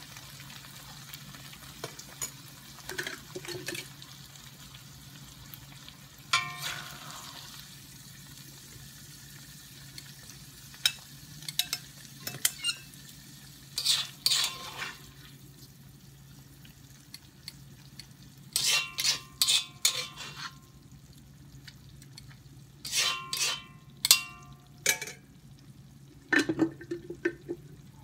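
Metal spatula scraping and clinking against a cast-iron wok as pasta is scooped out onto a plate. The scrapes are scattered, with clusters of ringing clinks in the second half.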